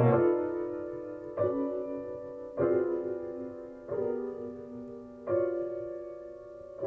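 Grand piano playing slow sustained chords, a new chord struck about every second and a half and each left to ring and fade.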